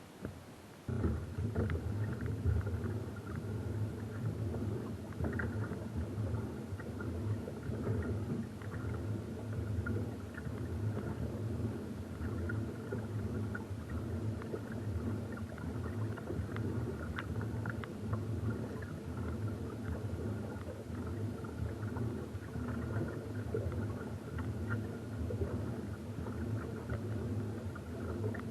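An engine running steadily, starting about a second in, with a low even hum and a fainter higher whine.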